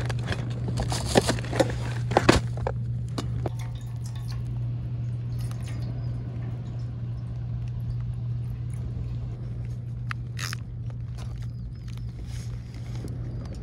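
A few sharp clicks and knocks of things being handled, bunched in the first couple of seconds with another pair about ten seconds in, over a steady low hum.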